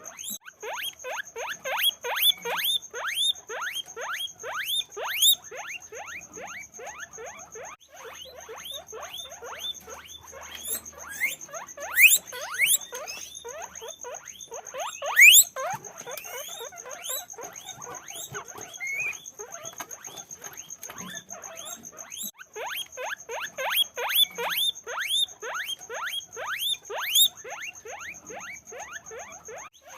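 Many guinea pigs squeaking together: a dense, unbroken stream of short rising squeaks, with a few louder, shriller squeals near the middle.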